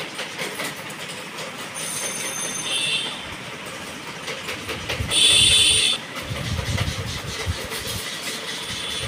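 Cloth rustling as a saree is shaken out and folded, over a steady background noise. A faint high squeal comes about two seconds in, and a louder high whistle-like tone sounds for just under a second about five seconds in.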